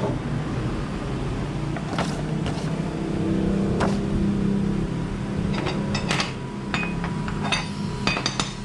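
Scattered clicks and knocks of a plastic-packaged spring and scooter CVT pulley parts being handled on a glass counter, over a steady low hum.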